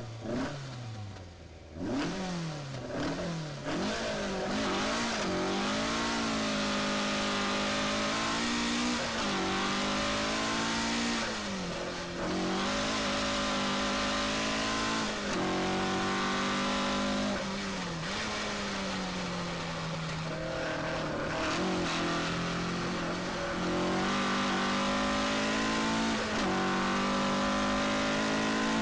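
Rally car engine heard from inside the car, pulling away hard from a standstill and accelerating up through the gears at full throttle. The pitch climbs and drops back at each upshift, with quick shifts in the first few seconds and longer pulls after that.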